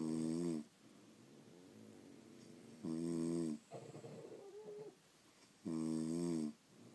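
Sleeping French bulldog snoring: three loud, pitched snores about three seconds apart, with quieter breathing sounds between them.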